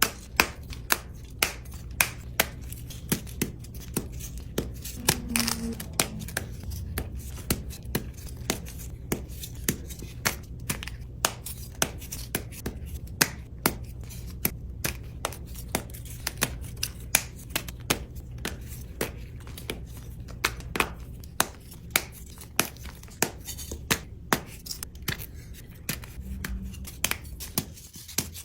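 Crunchy gym chalk being crushed, a steady run of sharp crunches about two or three a second over a low steady hum.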